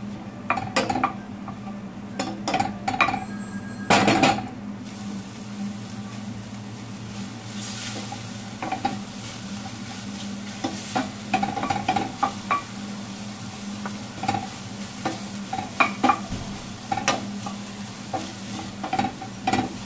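Wooden spatula stirring and scraping against a stainless steel pot while soy protein and diced tomato fry in it with a light sizzle. The strokes come irregularly, the loudest about four seconds in, over a steady low hum.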